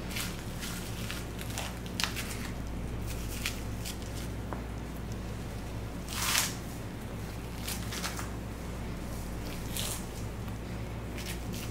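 Knife cutting through the fat and membrane of a raw wagyu beef round, with the wet sounds of gloved hands pulling the meat apart: short, scattered slicing strokes, the longest and loudest about six seconds in, over a steady low hum.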